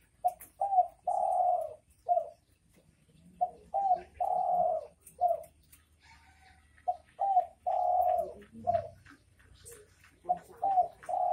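Spotted dove cooing its 'bekur bekur' song in repeated phrases about three and a half seconds apart. Each phrase runs two short hoots, one long drawn-out coo, then a short closing hoot. Three full phrases are heard, and a fourth begins near the end.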